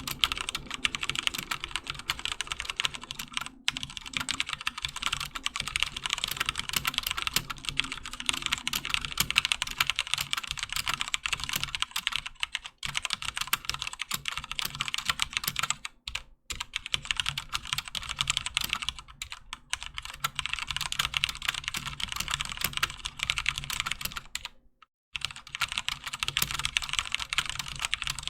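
Fast, continuous typing on a HyperX Alloy FPS Pro mechanical keyboard with Cherry MX Red linear switches: a dense stream of key clacks with a few brief pauses, and a short complete break about 25 seconds in.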